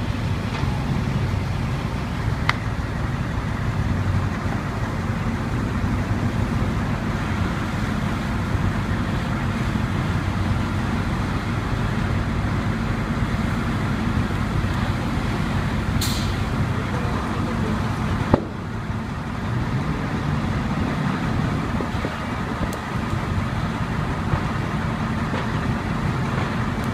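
Fire engine's diesel engine running steadily, with a few sharp cracks or knocks at intervals.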